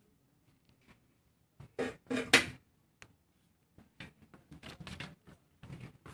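Red plastic shopping basket rattling and clattering as it is carried. The loudest knocks come in a short burst about two seconds in, followed by lighter scattered clicks and rattles.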